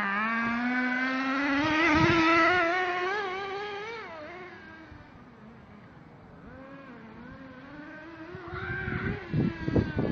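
Small nitro engine of an RC truck running at high revs. Its pitch climbs and wavers with the throttle in the first two seconds, then fades as it moves away. It stays faint, then comes back louder and rougher near the end.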